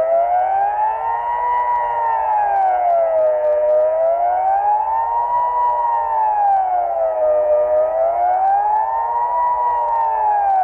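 Civil defence siren sounding the Swiss General Alarm in the annual siren test: a loud wailing tone that rises and falls smoothly and evenly, one full swell about every four seconds.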